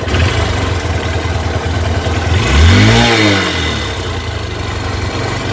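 Hero Hunk 150 cc single-cylinder motorcycle engine idling steadily. About two and a half seconds in, its throttle is blipped once: the revs rise and fall back to idle within about a second.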